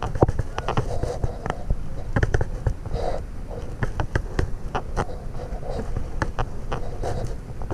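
Wind buffeting the microphone, with many scattered clicks and knocks throughout.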